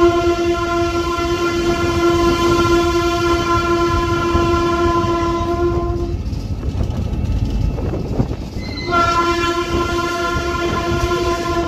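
EMD G22 diesel locomotive's air horn sounding a long, steady blast that cuts off about six seconds in, then sounding again about three seconds later and holding until near the end. Under it runs the low rumble of the locomotive's engine and its wheels on the rails.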